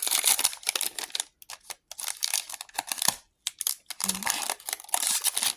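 Foil trading-card booster pack wrapper crinkling and tearing as it is worked open by hand, in two spells of dense crackling with scattered sharp crinkles between them. The wrapper is hard to open.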